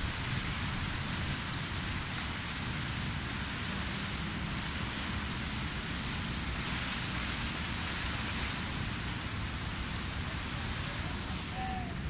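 Strong wind gusting over the microphone: a fluctuating low rumble under a steady rushing hiss.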